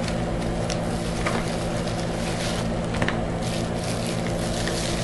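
A steady low background hum, with faint rustling and a few light clicks as a small mailed package is handled and opened by hand.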